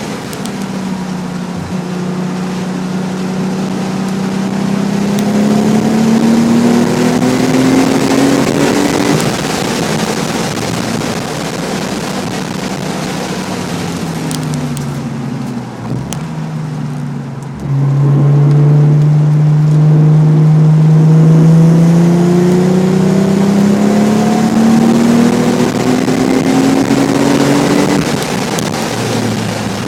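Nissan 300ZX's V6 engine, breathing through an aftermarket Specialty Z exhaust, at speed on track: the note climbs steadily under throttle for about nine seconds, then falls away as the driver lifts off. About two-thirds of the way through it comes back in suddenly louder and climbs again under hard acceleration, easing off near the end.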